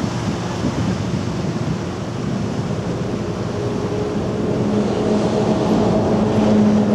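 Surf washing around the shore rocks, then the engine of a small fishing boat running fast, its steady drone coming in about halfway and growing louder toward the end.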